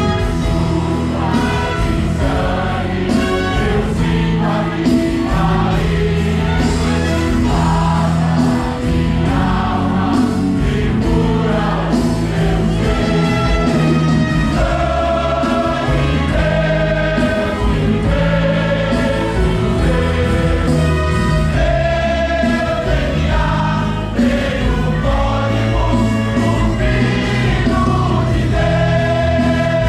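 Gospel music: a choir singing a Portuguese-language worship song with instrumental backing and a steady bass line.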